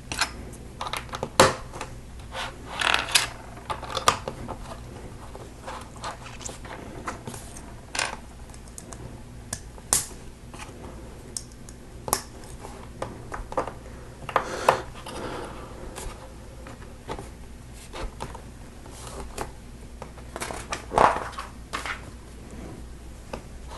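Plastic LEGO bricks clicking and rattling as pieces are handled and pressed together: scattered sharp clicks with a few short rustling scrapes, over a faint low hum.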